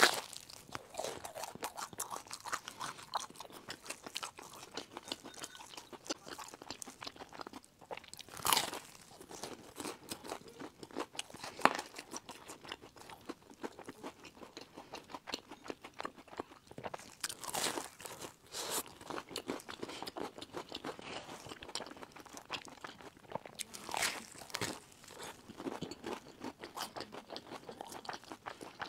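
Crunching and chewing as a person eats a sesame-crusted pastry topped with a crisp round biscuit, with a few louder crunching bites standing out among steady crackly chewing.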